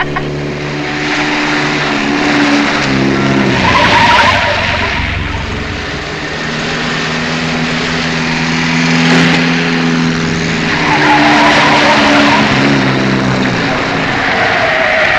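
Film soundtrack of a sports car driven fast, its tires squealing through the turns about four seconds in, again around eleven seconds, and near the end. Held pitched tones change in steps underneath.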